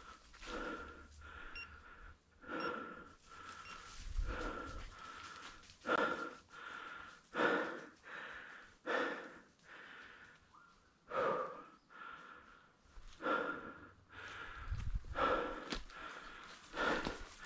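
Heavy, wheezy breathing, a breath every second or two, of someone walking uphill through woodland, with dry leaves rustling underfoot.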